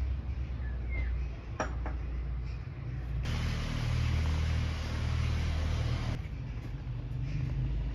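Outdoor background noise: a steady low rumble, with a hiss that sets in about three seconds in and cuts off sharply about three seconds later.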